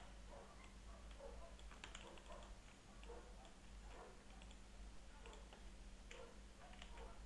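Faint computer mouse clicks, scattered irregularly, over a steady low electrical hum.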